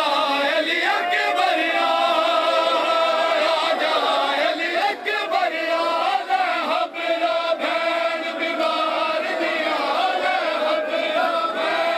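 Large crowd of male mourners chanting together in unison, a steady sustained chant of many voices.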